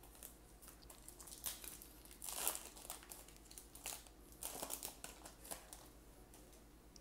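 Foil baseball card pack wrapper being torn open and crinkled by hand, in several irregular bursts through the middle of the clip.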